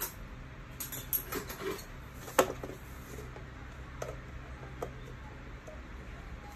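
Scattered clicks and knocks of a long screwdriver working the screws of a plastic miniature circuit breaker held on a wooden stool. The loudest is a sharp knock about two and a half seconds in.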